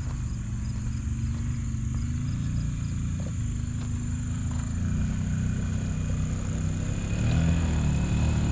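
Side-by-side UTV engine running at idle, picking up a little about seven seconds in, with a steady high-pitched insect drone above it.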